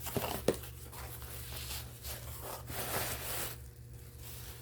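Shipping packaging being opened and handled by hand: two sharp clicks at the start, then a few seconds of rustling and scraping as the package is pulled open.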